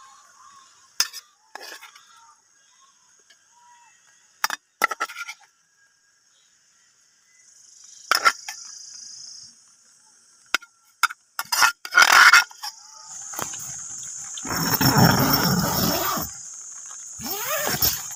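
Steel spoon clinking against a small glass bowl several times as food is spooned in, followed by a steady hiss and a louder rustling scrape of tent fabric being handled.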